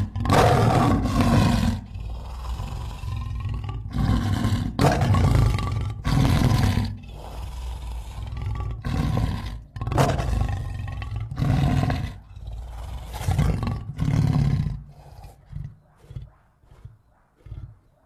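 King Caesar's monster roar sound effect: a series of loud drawn-out roars with quieter rumbling between them, trailing off near the end into short, fading bursts.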